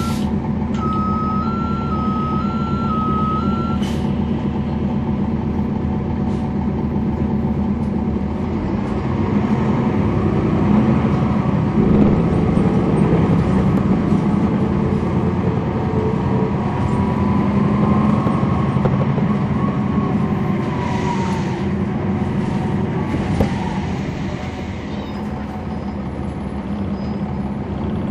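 Cummins ISL9 diesel of a 2011 NABI 40-SFW transit bus, heard on board. It runs steadily at first while an electronic warning beep alternates between two pitches, stopping about 4 s in. About 9 s in the engine speeds up and runs under load, with a whine that rises and falls, then it eases off near the end.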